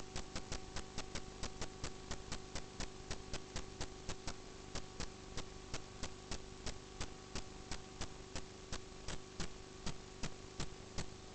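Drain inspection camera equipment giving a steady electrical hum with sharp, evenly spaced ticking, about three to four ticks a second.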